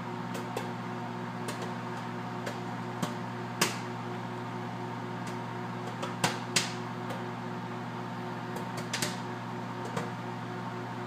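Microwave oven running with a steady hum while popcorn kernels pop inside it, sparse and irregular, a single pop every second or so, with the loudest pops a little over three seconds in and about six seconds in.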